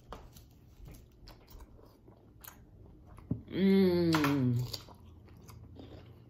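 Close-up chewing and lip smacking with small clicks and crunches as seafood and cucumber are eaten. About three and a half seconds in, a woman hums one long falling "mmm" of enjoyment, the loudest sound.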